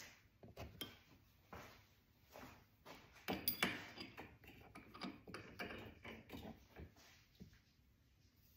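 Small steel hardware clinking and clicking as a washer, lock washer and nut are fitted by hand onto the bolt of a whip quick-disconnect mount. The clinks come in scattered light ticks, with a brief ringing cluster about three and a half seconds in.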